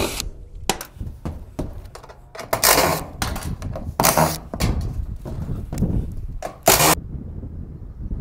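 Cordless driver backing screws out of a metal gutter and roof edge in about four short runs, with clicks and knocks of metal between them.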